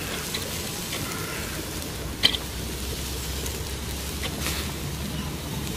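Chicken kebabs on skewers sizzling over a charcoal grill: a steady hiss, with a sharp crackle a little over two seconds in and a fainter one about four and a half seconds in.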